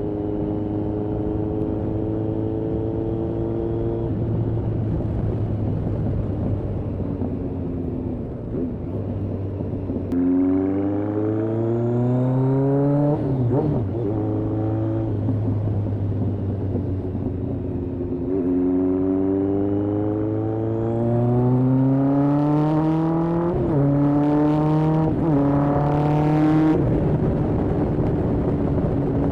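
Kawasaki ZRX1200R's inline-four engine, breathing through Yoshimura TMR-MJN carburetors, running at a steady cruise, then revving up. About two thirds of the way in it pulls hard through the gears with two quick upshifts, the note dropping at each shift.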